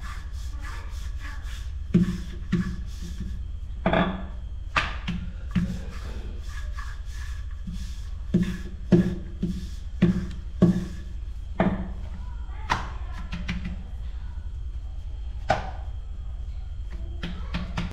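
Wooden rolling pin rolling out a stack of dough rounds on a hard countertop, with irregular wooden knocks and thuds as it is pushed back and forth and set down, over a steady low hum.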